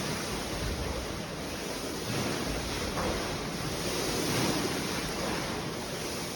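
Swimming-pool water sloshing and splashing, set rocking by an earthquake: a steady rushing noise of moving water.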